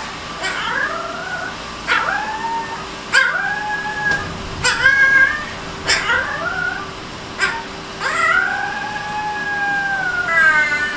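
A very young husky-type puppy howling: about eight short, squeaky howls, each starting with a sharp yip and gliding down in pitch, then one longer drawn-out howl near the end.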